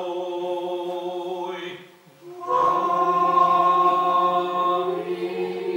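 Orthodox liturgical chant: a held sung note ends about two seconds in. After a short pause a choir sings a drawn-out 'Amin' (Amen) in unaccompanied chant, its melody stepping up near the end.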